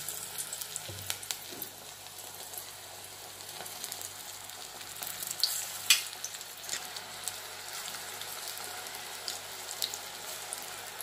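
Gram-flour bonda batter deep-frying in hot oil in an iron kadai, pinched in by hand: a steady sizzle with frequent crackles and pops, the sharpest about five and a half and six seconds in.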